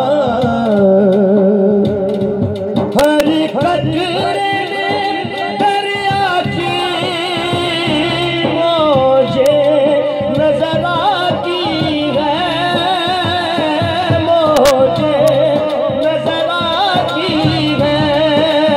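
Live Sufi devotional song: a singer's wordless, wavering vocal runs over instrumental accompaniment, continuing without a break.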